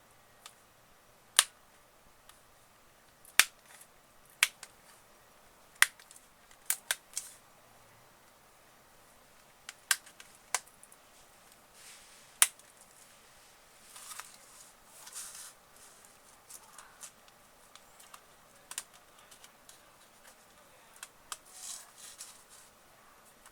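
A tablet being taken apart by hand: about nine sharp plastic clicks and snaps in the first half, then softer scraping and rustling of small parts.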